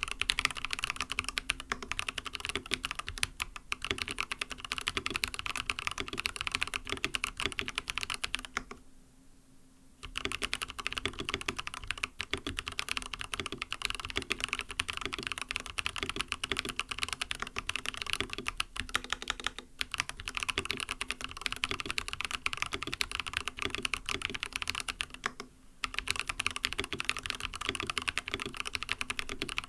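Continuous fast typing on an mStone Groove T keyboard with fully lubed 45 g MMD Coral non-clicky switches and silicone plate foam: dense rapid keystrokes, pausing for about a second roughly nine seconds in and briefly again about twenty-five seconds in.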